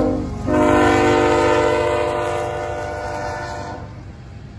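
CSX diesel locomotive air horn sounding a multi-note chord over the low rumble of a passing freight train. A short blast ends about half a second in, and after a brief break a long blast sounds until near the end. The rumble then fades.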